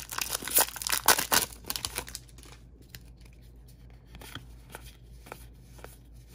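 Foil wrapper of a Magic: The Gathering collector booster pack crinkling and tearing open for about two seconds. After that come faint, scattered clicks and slides of playing cards being pushed through by hand.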